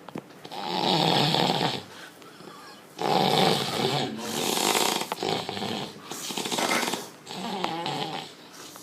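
Loud snoring from a sleeper: about five long snores, each lasting about a second, with short gaps between them.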